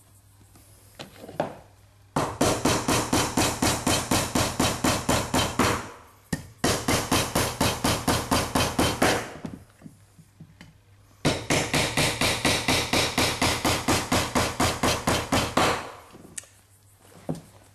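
Hammer driving panel pins into the corner of a timber box: three runs of rapid, even blows, about five a second, with short pauses between runs.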